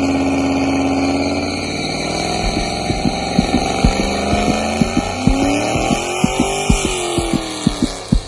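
Ford Mustang GT V8 on a straight-pipe exhaust, its headers fitted and catalytic converters and mufflers removed, revving. It is held high at first, drops back, then rises and falls again, with sharp pops from the exhaust through the second half.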